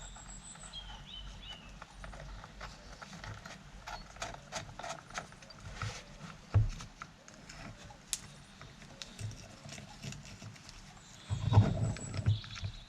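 Irregular clinks and knocks of small metal parts and tools being handled on a workbench, as nuts and bolts are searched for, with a louder spell of knocking and rummaging near the end.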